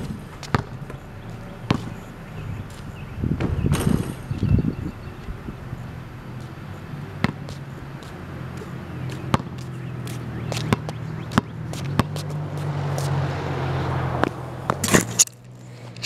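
A basketball bouncing on a concrete driveway, heard as single sharp knocks at irregular gaps rather than a steady dribble, over a low steady hum that swells about twelve seconds in. Loud bumps of the camera being handled come near the end.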